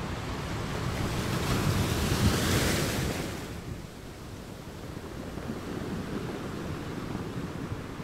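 Sea surf washing on the shore: one wave swells about a second in, peaks and fades away by the middle. Under it runs a steady low rumble of wind on the microphone.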